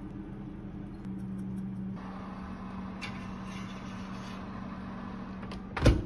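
Fan of a preheated Samsung built-in oven humming steadily with its door open as a ceramic soup bowl is set on the wire rack, with a light knock about three seconds in. The oven door shuts with a loud thud near the end.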